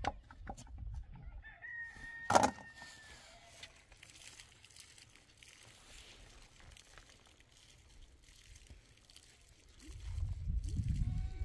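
A rooster crows once about two seconds in, a held call that drops in pitch at the end, with a single sharp knock during it. Near the end a low rumble rises and a sheep starts bleating.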